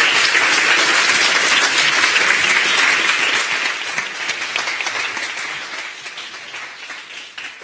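Audience applauding: dense clapping at full strength for the first few seconds, then slowly dying away to a few scattered claps near the end.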